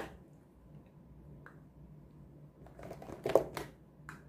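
Faint low hum, then a short cluster of small clicks and rustles from makeup items being picked up and handled, loudest about three seconds in.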